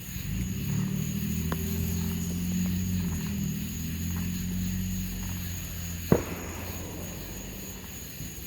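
A low, steady engine hum that swells in the first second and fades out around seven seconds. A single sharp pop comes about six seconds in.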